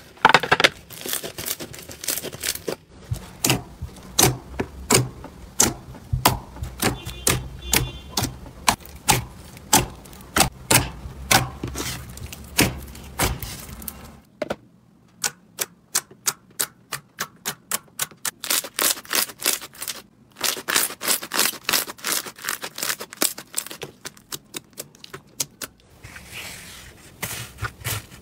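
Slime being squeezed and pressed by hand, a dense run of crisp clicks and pops as air pockets in it burst. The first half, with a crumbly green slime, has a low hum under it that stops about halfway, when a glossy blue slime is squeezed instead.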